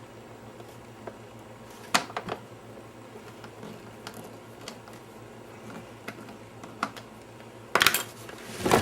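Scattered small clicks and taps of hand work on plastic and small metal parts as an hour meter is screwed onto a generator's plastic case. A louder burst of clattering handling noise comes near the end.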